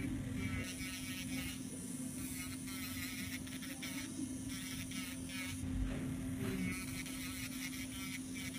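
Electric nail drill (e-file) running steadily with a constant hum, its bit filing an artificial nail.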